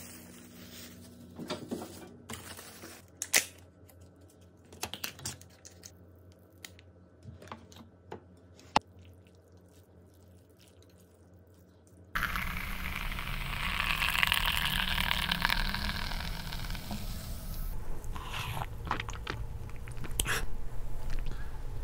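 Soft rustling and scattered clicks of a plastic bag, noodles and chopsticks against a plastic takeaway bowl. About halfway through, a loud hissing noise starts suddenly and fades over about six seconds, followed by sharp clicks of a cup being handled.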